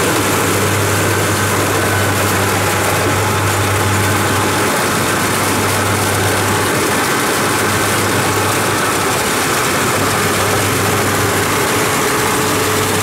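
Kubota DC-70 Plus combine harvester's diesel engine running steadily under load, a low hum beneath a constant mechanical hiss from the machine's working parts.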